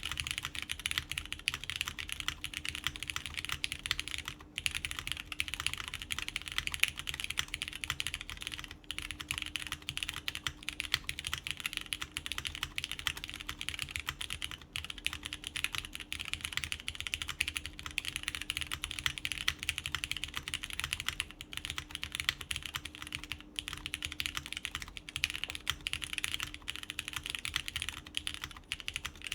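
Continuous fast typing on a mechanical keyboard with lubed Cherry MX Brown tactile switches on a polycarbonate plate, fitted with GMK keycaps: dense key clacks with a few brief pauses.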